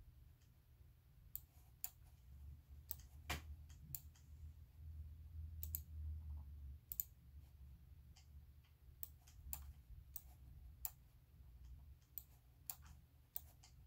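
Faint, irregular clicking of a computer being operated, a click every second or so, over a low steady hum.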